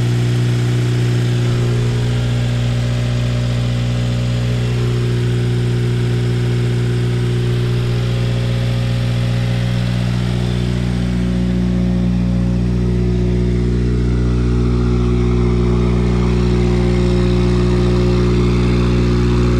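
Subaru flat-four boxer engine idling steadily while it warms up, just after a fresh oil change.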